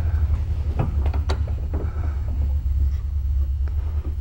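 A steady low hum, with a few scattered sharp metal clicks as a striker disc on a side-by-side shotgun's sidelock action is screwed tight with a hand tool in a bench vise.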